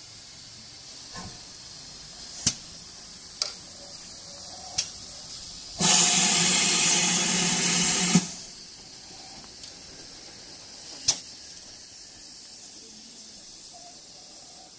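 GWR Manor class 4-6-0 steam locomotive 7820 Dinmore Manor standing in steam with a steady faint hiss. About six seconds in, a loud burst of steam lasts a little over two seconds and cuts off. A few sharp clicks sound before and after it.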